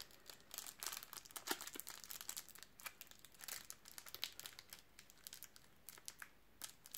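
Faint crinkling and crackling of a taped plastic blister pack being worked by hand, fingers trying to pry out a trading card that is wedged in tightly.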